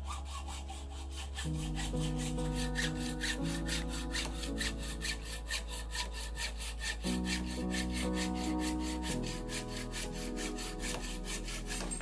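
Hacksaw cutting a mountain bike suspension fork's steerer tube to length, the tube held in a saw guide in a bench vise. Quick, even back-and-forth strokes in a steady rhythm.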